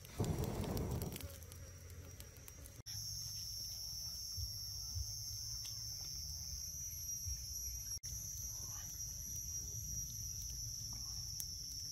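A short rush of noise from the wood fire in the first second. Then, starting abruptly about three seconds in, a steady high-pitched insect drone, one unbroken buzzing tone, runs on with a brief break about eight seconds in.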